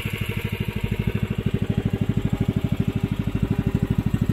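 Small motor boat's engine running steadily with a fast, even beat.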